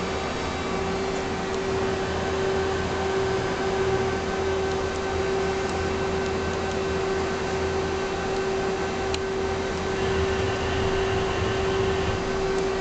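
Okuma LC 20 CNC lathe running: a steady machine hum with a constant whine, a single click about nine seconds in, and a faint higher hiss for about two seconds near the end.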